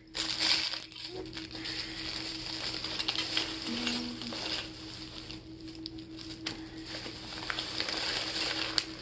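Plastic shopping bag rustling and crinkling steadily as hands rummage through it.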